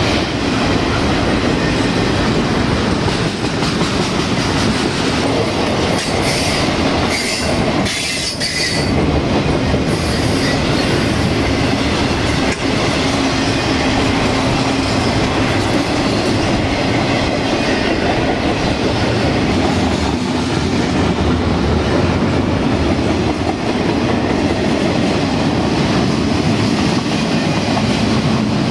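Double-stack intermodal freight train rolling past close by: a steady loud rumble and rattle of wheels on rail, with a few brief high squeals from the wheels about six to ten seconds in.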